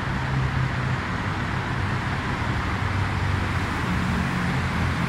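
A motor vehicle engine running steadily, a low even hum with no revving.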